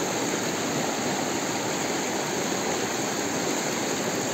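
Steady rushing of a small river's flowing water, even and unbroken.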